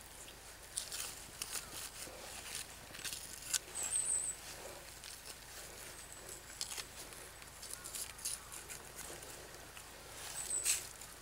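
Faint, scattered clicks and soft wet cutting sounds of a knife working through the hide and flesh of a deer carcass being field-dressed, with hands moving against the carcass and the grass. A brief high chirp comes about four seconds in and again near the end.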